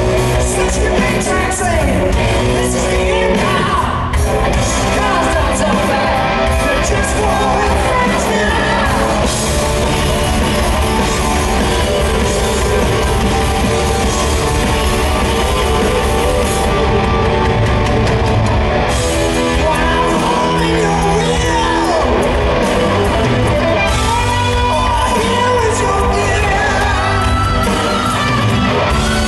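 Live rock band playing with drums, electric guitar and sung vocals, with yells from the crowd. It is heard from among the audience in a large arena hall.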